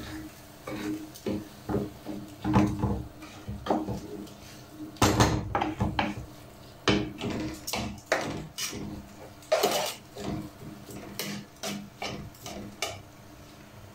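Wooden spoon stirring a thick rice and tomato filling in a metal pot, knocking and scraping against the pot at irregular intervals, with a few louder clunks.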